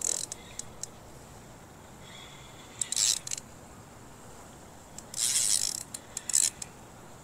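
Spinning reel's drag clicking and buzzing in short bursts as line slips off the spool under the pull of a hooked fish. The bursts come about 3 seconds in, from about 5 to 6 seconds (the longest), and briefly after that.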